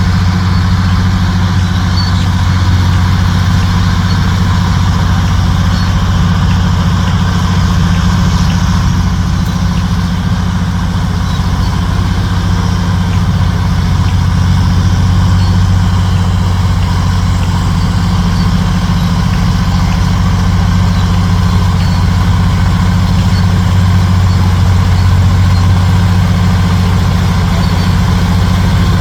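Heavy dump truck's diesel engine idling steadily, a low even drone that does not change.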